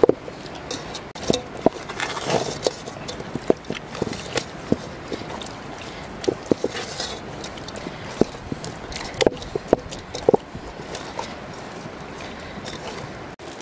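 Hands pressing raw whole fish down into a metal cooking pot: irregular sharp knocks of fish and fingers against the pot, with wet squelching, over a steady background hiss.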